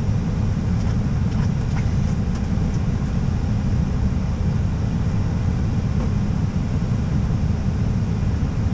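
Steady low rumble inside an Airbus A320 cockpit in flight: airflow and engine noise.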